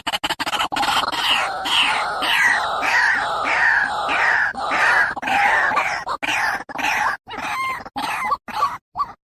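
White-breasted waterhen calling: a run of repeated harsh notes, about three a second, breaking into shorter notes with gaps near the end and then stopping abruptly.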